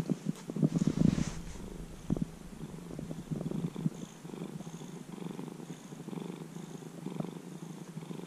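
Orange-and-white domestic cat purring steadily, close up, with a fast low rhythmic rumble; a few louder rustling, brushing sounds about a second in.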